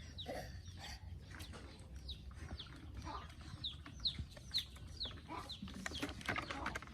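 A bird, likely a chick or chicken, chirping over and over: a run of short, high chirps, each sliding downward, about two a second.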